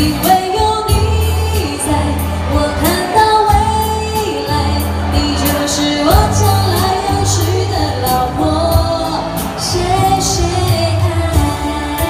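A female singer sings a Mandarin pop song live, backed by violin and keyboard, over a steady beat.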